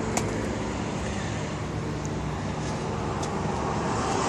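Steady traffic-like rumble and hiss of road vehicles, with a couple of faint clicks.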